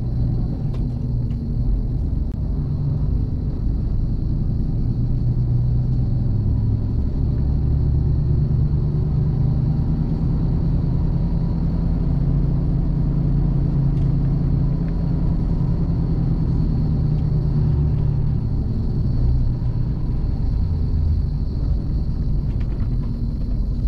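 Mercedes-Benz Actros truck heard from inside its cab while driving: a steady low diesel engine drone mixed with road rumble. The engine hum is strongest through the middle and eases off somewhat in the last few seconds, and a faint steady high whine sits over it.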